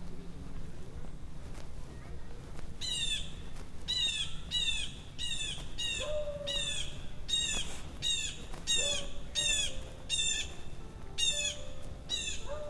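A bird calling over and over, a quick series of short, falling, clear notes, well over a dozen at about two a second, starting about three seconds in and carrying on to the end.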